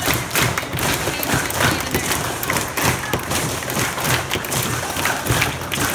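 Many overlapping percussive thumps and taps from a group of people, dense and irregular.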